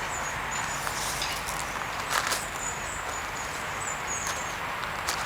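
Outdoor ambience: small birds chirping with short high repeated calls over a steady hiss, broken by a few sharp clicks or crunches, the loudest about two seconds in.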